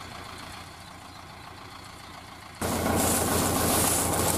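Mahindra Arjun Novo 605 tractor's diesel engine idling with a steady low pulse, heard from a distance at first. About two and a half seconds in it suddenly becomes much louder and closer, with a broad hiss over it.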